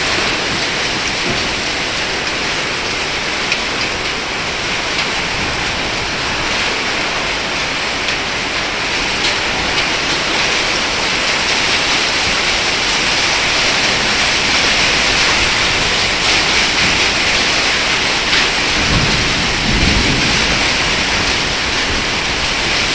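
Heavy rain mixed with falling hail: a steady hiss with scattered sharp ticks of hailstones. A low rumble comes in about nineteen seconds in.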